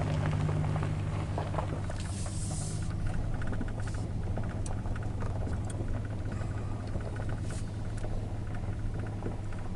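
Motor vehicle engine running with a steady low hum while the vehicle moves along slowly, with scattered light clicks.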